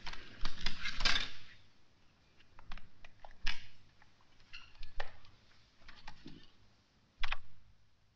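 Laptop keyboard being typed on: scattered single key clicks and taps.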